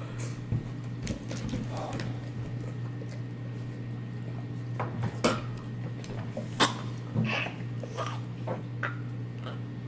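People gasping, breathing hard and whimpering from the burn of a just-eaten habanero pepper, with scattered sharp knocks and clatter, over a steady low hum.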